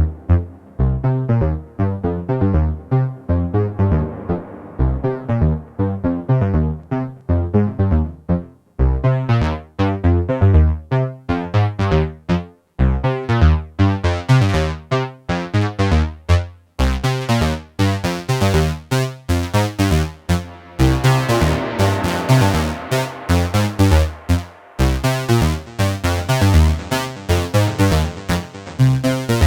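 IK Multimedia Uno Synth Pro X analog synthesizer playing a fast, rhythmic sequenced pattern of short notes. The sound grows brighter about a third of the way in and fuller and denser in the second half.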